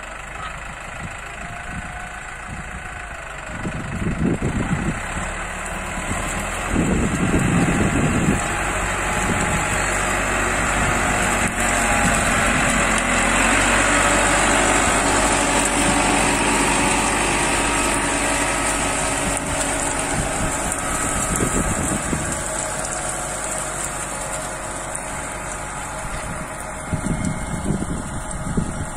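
New Holland 7610S tractor's diesel engine running steadily as it pulls a bed reformer with a bladed roller. It grows louder as the tractor passes close, is loudest about halfway through, then fades as it pulls away.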